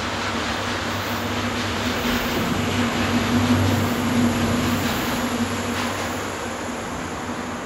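Loaded tank-car freight train rolling away along the track: a steady rumble of wheels on rail with faint clicks, and a low hum that fades about six seconds in.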